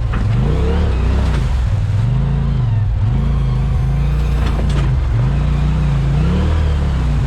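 Engine of a Polaris RZR Pro XP 4 side-by-side driving on a trail. The revs rise and fall over and over, about once a second, as the throttle goes on and off.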